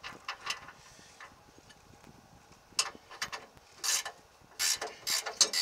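Ratchet wrench clicking in short bursts, a few strokes at the start and then a run of bursts about half a second apart from the middle on, as the lower mounting nut of a new rear shock absorber is turned down.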